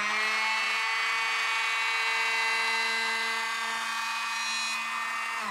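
Bosch GHO 12V-20 cordless brushless planer running at full speed, making a pass at its shallowest depth setting. It is a steady, high whine that begins winding down, falling in pitch, right at the end.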